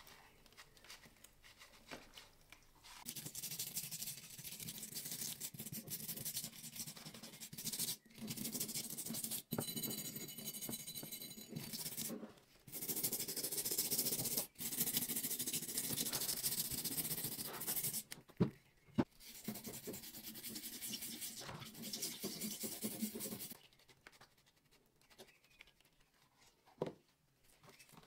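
Stiff brush scrubbing a rusty cast-iron sad iron coated in baking soda, a steady rasping rub that comes in several long stretches with brief breaks. There are a couple of sharp knocks about 18 seconds in, and it goes quiet about five seconds before the end.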